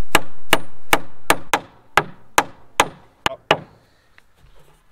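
A hammer striking a wooden lumber frame in a steady run of about ten quick blows, two to three a second, stopping about three and a half seconds in.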